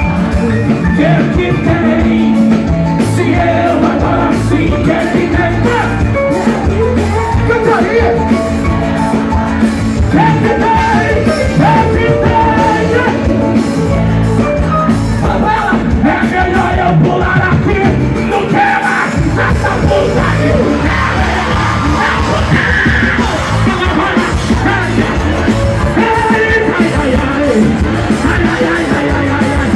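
Loud live Pentecostal worship music: a band playing a steady beat while a male singer sings into a microphone, with yelling voices mixed in.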